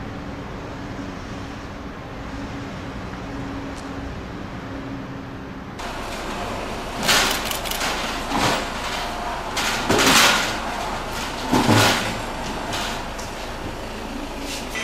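A steady low engine hum, then a wheeled transport cart rolled out through the entrance doors, with several loud clattering noises.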